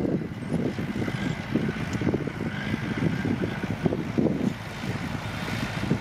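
Small crawler bulldozer's diesel engine running under load as the blade pushes dirt, with an uneven, pulsing low sound.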